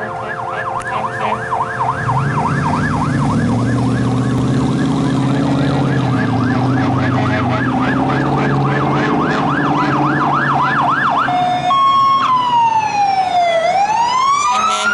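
Fire tanker's electronic siren approaching in a fast yelp, about three sweeps a second, then switching about eleven seconds in to a slow wail that falls and rises again. A vehicle engine runs underneath through the middle.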